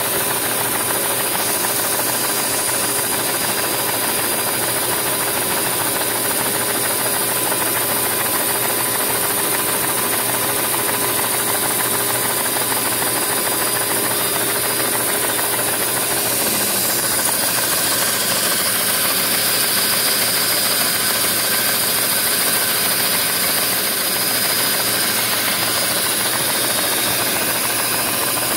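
LEGO four-cylinder overhead-cam vacuum engine running steadily, driven by the suction of a vacuum cleaner. The vacuum's steady hiss and motor whine carry through, along with the mechanical knocking and rattle of the plastic engine.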